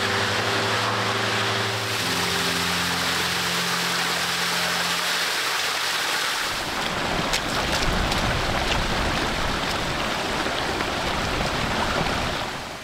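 Steady loud rushing of wind over open ground, with a deeper rumble of wind on the microphone joining from about six seconds in; it drops away sharply near the end. A few held low drone notes of ambient music sound under it and fade out after about five seconds.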